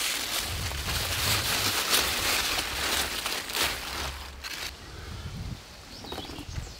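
Cucumber vine leaves rustling and crackling close by as hands push through the plants and pick cucumbers. Loudest for the first four seconds or so, then quieter.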